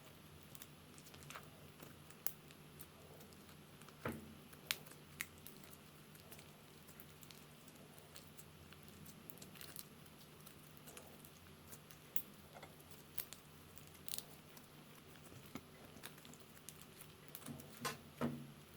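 Slime being squished and kneaded by hand, giving irregular sticky clicks and small pops, with a few louder ones about four seconds in and near the end.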